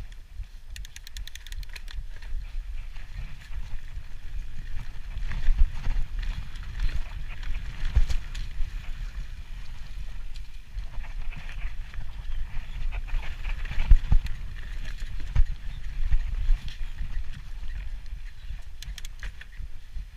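Mountain bike riding fast down a dirt trail: a constant low rumble of wind and trail vibration on the camera microphone, broken by sharp knocks as the bike hits bumps. Two brief runs of rapid ticking, about a second in and near the end, fit the rear hub freewheeling while the rider coasts.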